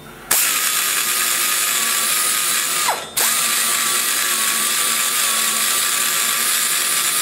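Die grinder with a spiral-cut carbide burr cutting metal inside a cylinder head's exhaust port, blending down the port wall: a steady high whine over a harsh hiss. About three seconds in it is let off, the whine falling as the burr spins down, then it is started again at once.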